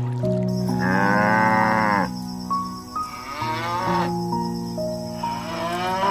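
Cows mooing: three long moos, one every two seconds or so, over background music with sustained notes.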